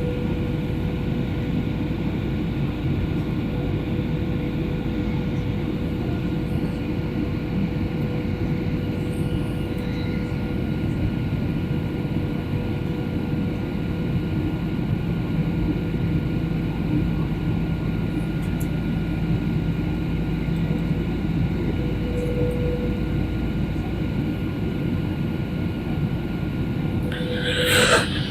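Steady in-flight cabin drone of a Boeing 737 airliner holding: a low rumble of engines and airflow with a constant whine running through it. A brief louder sound comes near the end.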